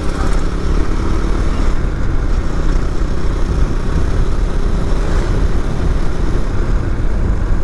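Motorcycle riding at steady road speed: the bike's engine running under a heavy, even wind rush on the microphone.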